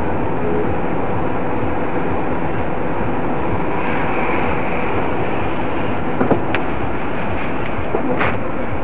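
Steady road and engine noise of a car driving on a highway, picked up inside the cabin by a dashcam, with a few brief clicks or knocks about six and eight seconds in.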